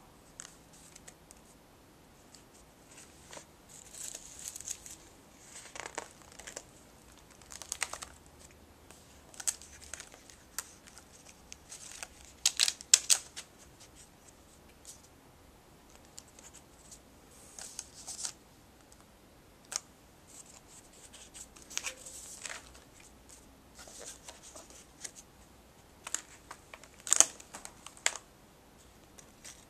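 Paper pages of a spiral-bound sketchbook being handled, turned and lifted: irregular rustling and crinkling, loudest in a cluster about halfway through and again near the end.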